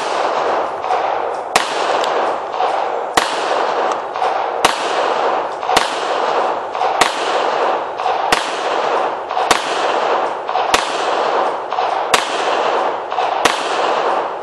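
Taurus PT145 Millennium Pro .45 ACP pistol fired about eleven times in steady succession, roughly one shot every second and a half, each sharp report followed by a ringing, echoing tail.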